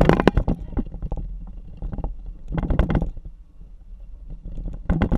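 Hummer H3 driving over a wet, puddled gravel track: a steady low rumble of road noise, broken three times (at the start, about two and a half seconds in, and near the end) by loud bursts of jolting and splashing as the tyres hit puddles and ruts.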